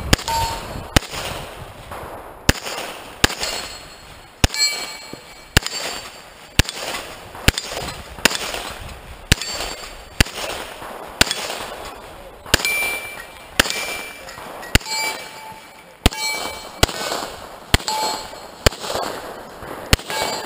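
Pistol shots fired at a steady pace of about one a second, most followed by the metallic ring of a steel target being hit.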